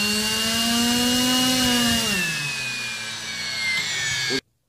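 Hubsan H501c drone motor spinning its propeller: a steady whine that rises slightly, drops in pitch a little past two seconds in, then cuts off suddenly near the end. The motor is operating properly.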